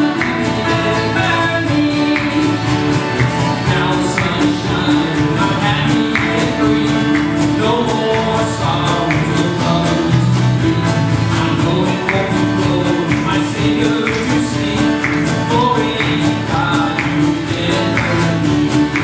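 Live band music: acoustic guitar, electric bass and keyboard playing a slow song over a light beat of about one stroke a second.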